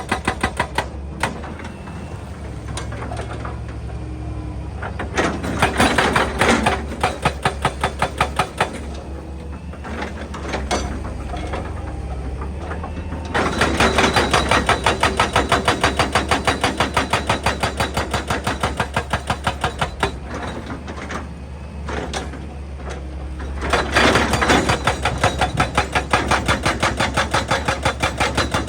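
Excavator's hydraulic rock breaker hammering rock in rapid, evenly spaced blows, several a second, in three long bouts with pauses between, over the excavator's diesel engine running steadily.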